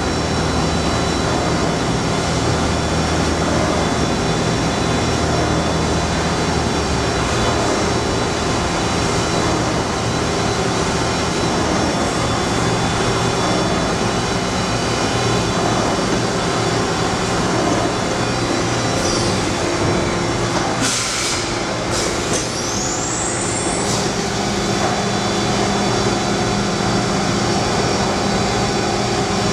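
Acer AGS-2040AHD automatic surface grinder running, a steady mechanical hum with several constant whining tones. About two-thirds of the way through there is a brief hiss with rising whistles.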